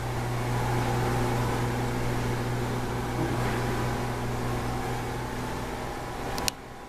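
Steady low mechanical hum with a hiss, from an appliance or air-handling unit running. A sharp click near the end, after which the hiss drops away.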